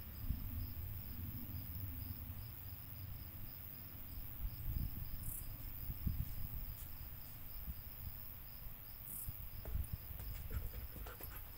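Insect chirping in an even pulse, about three chirps a second, over a low steady rumble.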